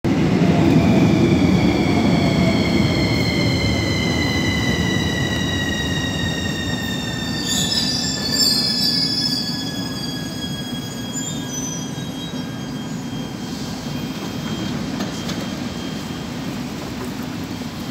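CAF metro train pulling into the station and slowing to a stop. Its wheel rumble fades and its electric drive gives several whines that fall steadily in pitch. A brief high-pitched squeal comes about eight seconds in.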